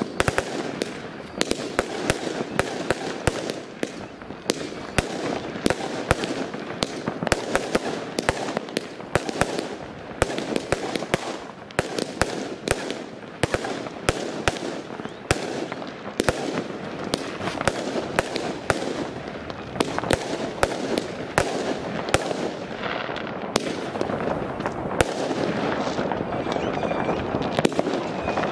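Fireworks going off without pause: a constant crackle with many sharp bangs, several a second, as shots rise and burst.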